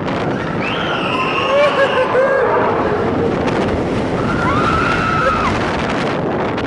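Riders screaming on a moving ride over loud rushing wind noise, in two long spells of screams.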